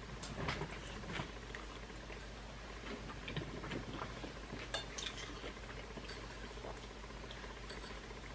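Eating sounds: faint, irregular small clicks and taps of a utensil against a food container, mixed with chewing of shrimp and crunchy vegetables, with a few sharper clicks about halfway through.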